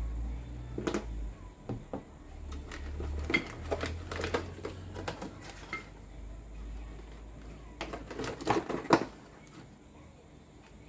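Metal parts and tools being handled during work on a demolition hammer: scattered clicks, clinks and knocks in clusters, the busiest about a third of the way in and again near the end.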